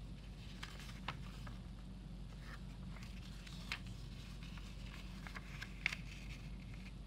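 Origami paper being handled and creased by hand: scattered short paper rustles and crinkles, the sharpest about six seconds in, over a steady low hum.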